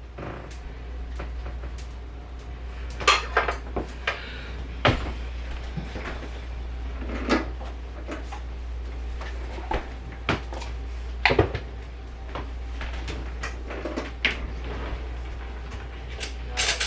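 Kitchen clatter of serving food: dishes, cutlery and cupboard or drawer knocks, a scattered series of short clicks and clunks, with a steady low hum underneath.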